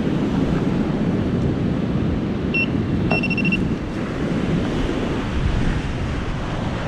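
Wind buffeting the microphone over steady surf. A metal detector gives one short high beep about two and a half seconds in, then a quick run of beeps, signalling metal under the sand.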